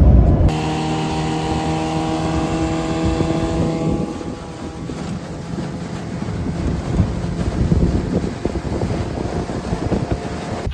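Outboard motor on a john boat running at speed with a steady hum, which fades out about four seconds in. Wind then buffets the microphone.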